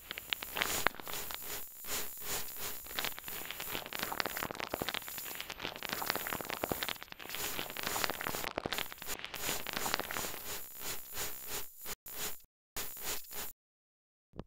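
Dense crackling, static-like noise full of rapid clicks, cutting off abruptly to silence a few times near the end.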